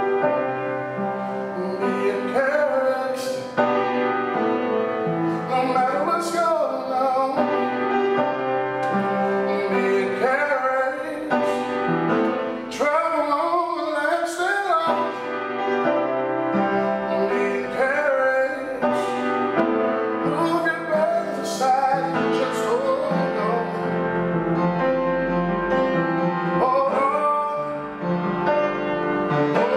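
A man singing a slow song while accompanying himself on an upright piano, with sustained piano chords under the sung melody.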